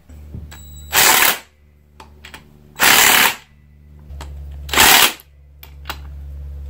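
Yellow DeWalt cordless impact wrench hammering the Loctited carrier bearing cap bolts of a Ford 9-inch third member back down, in short bursts about two seconds apart, three of them, with a fourth starting at the very end.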